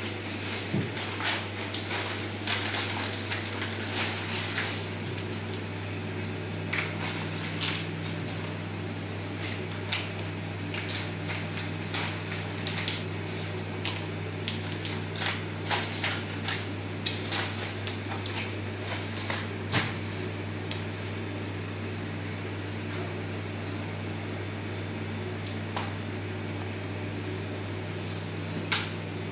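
A plastic carrier bag rustling and crackling in irregular bursts as goods are handled and packed into it, over a steady low hum.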